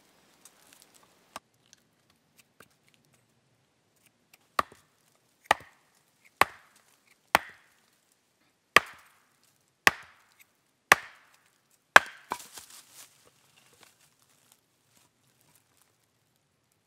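Hatchet chopping a stick on a tree stump used as a chopping block: eight sharp strikes about a second apart, starting a few seconds in, followed by a few lighter knocks.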